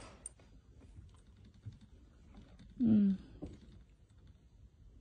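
Light scattered clicks and taps of a cat's and dog's paws and claws on a wooden bedside table as they play. About three seconds in there is one short vocal sound that falls in pitch.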